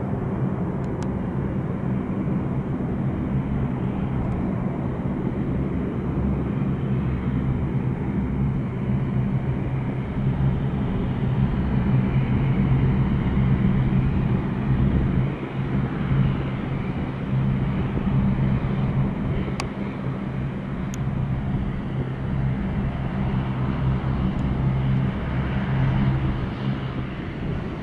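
De Havilland Dash 8-400 turboprop taxiing at low power, its two propellers and turbine engines making a steady droning hum that grows a little louder near the middle as the aircraft passes closest.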